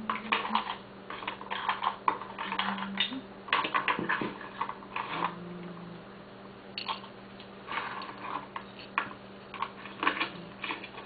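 Hard oyster shells clicking and clattering in quick irregular clusters as a batch of pearl oysters is handled and set out for opening.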